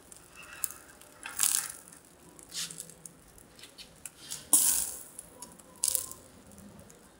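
Charcoal fire under whole fish grilling on a bamboo rack, crackling and sizzling: a handful of irregular sharp pops and short hisses, the loudest a little past halfway.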